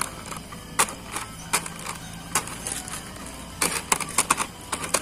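Plastic snack packets crinkling and crackling as fingers press and shift them: a run of short, sharp crackles at irregular intervals, bunched together around four seconds in.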